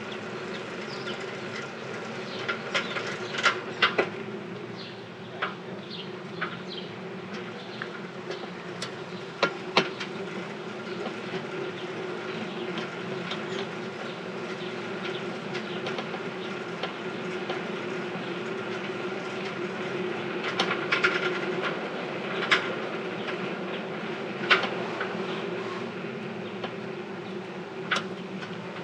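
A rented bicycle rattling as it rolls along: a steady mechanical drone from the drivetrain and tyres, with scattered sharp clicks and clatters from its loose parts, bunched in a few spots.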